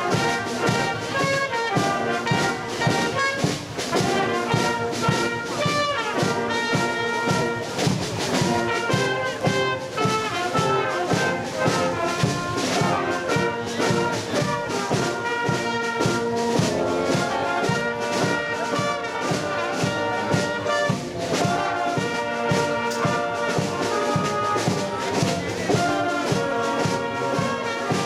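Youth wind band playing live: flutes, clarinets, saxophone and brass together, with a steady beat.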